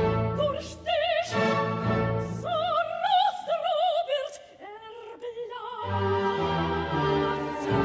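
Background music: operatic singing with a wide vibrato over an orchestra.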